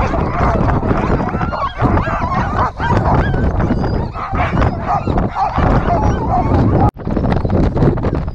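A harnessed team of sled dogs yelping and howling together, the excited noise of huskies straining to go at a race start, with wind rumbling on the microphone.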